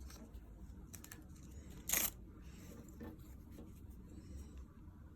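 Hands handling a watch band and its packaging: light rustling and small clicks, with one short, louder rasping rip about two seconds in.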